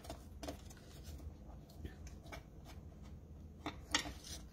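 Small die-cut cardstock envelope being folded by hand and creased with a bone folder: faint, scattered paper rustles and crackles, the sharpest a little before the end.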